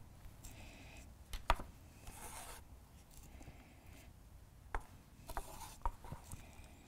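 Quiet tasting sounds: soft sips and breaths at paper cups of beer, with a few light clicks and taps scattered through.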